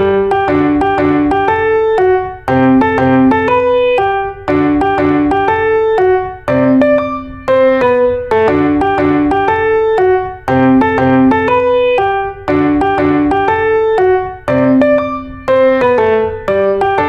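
Background piano music: a short melodic phrase that repeats about every two seconds.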